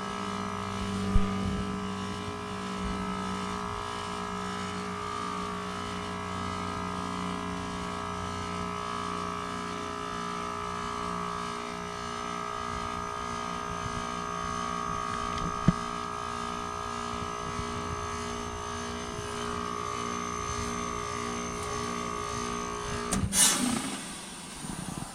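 2017 Goodman GSZ14 2-ton heat pump running in its defrost cycle: the compressor gives a steady hum of several tones, with a couple of sharp clicks. About 23 seconds in comes a sudden loud whoosh of refrigerant and the humming tones cut off, typical of the reversing valve shifting as defrost ends.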